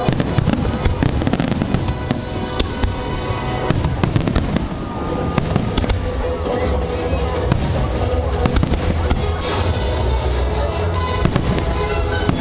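An aerial fireworks display going off: rapid cracks and bangs, thickest in the first couple of seconds and again near the end, over the music the show is fired to.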